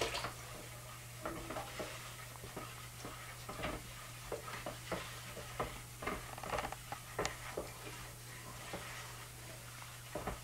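Paint stir stick stirring primer in a plastic bucket, scraping and lightly clicking against the sides at an irregular pace, as distilled water is mixed into the water-based primer to thin it. A steady low hum runs underneath.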